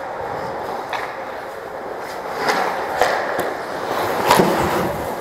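Ice hockey skates scraping and carving on rink ice, with a few sharp clicks of sticks and puck.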